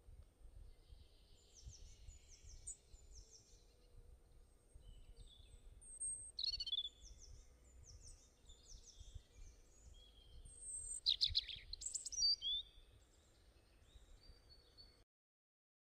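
Small birds chirping: runs of quick, high, downward-sweeping chirps, with a louder cluster of calls about eleven to twelve seconds in. A faint low rumble sits underneath. The sound cuts out abruptly near the end.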